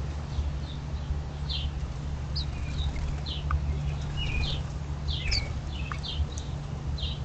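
Small songbirds chirping: short, high chirps repeating about once or twice a second, over a steady low hum.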